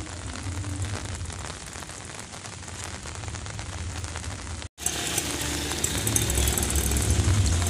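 Outdoor noise: a low rumble under a steady hiss. It breaks off about five seconds in and comes back louder, with more hiss.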